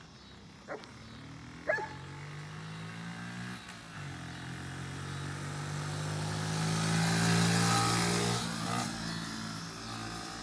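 Small pit bike engine running steadily. It grows louder to a peak about three-quarters of the way through, then eases off. Two short clicks come in the first couple of seconds.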